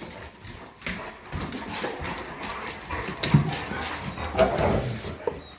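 Labrador retrievers whining and yipping while they wait to be fed, with scattered clicks and knocks.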